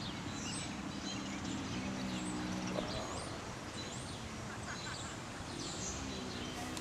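Several birds chirping and calling over a steady outdoor background, with a low hum that comes and goes.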